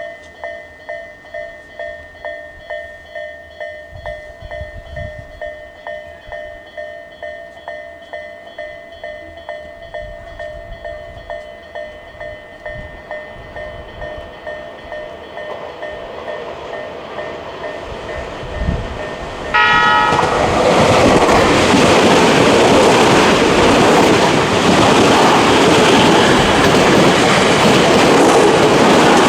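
Level-crossing warning alarm with Tobu Railway's electronic 'A' tone, ringing about twice a second. About twenty seconds in, a train gives a short horn blast and runs through the crossing, its wheels clattering loudly over the rails and drowning out the alarm.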